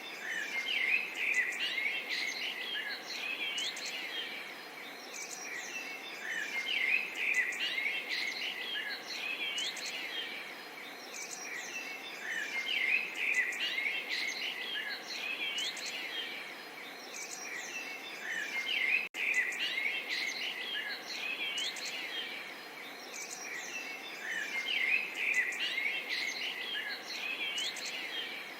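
A chorus of many small birds chirping and twittering at once, swelling and fading every few seconds, with a brief dropout about two-thirds of the way through.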